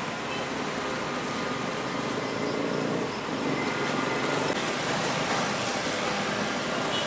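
Steady road traffic passing close by: cars and motorcycles driving past.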